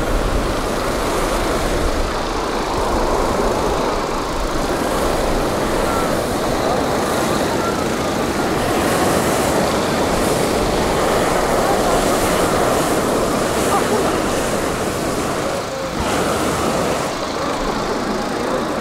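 Steady rushing noise of hot-air balloons being inflated and heated, with propane burners and inflator fans running, and crowd voices mixed in.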